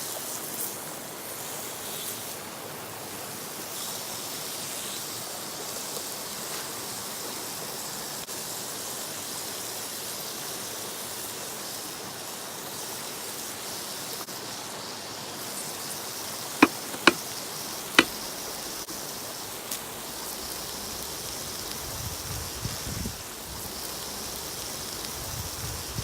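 River water rushing steadily, an even hiss, with three sharp clicks about seventeen seconds in.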